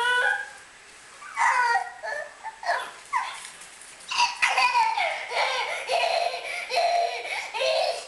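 A baby laughing in high-pitched bursts, a few short ones at first, then nearly without a break from about four seconds in.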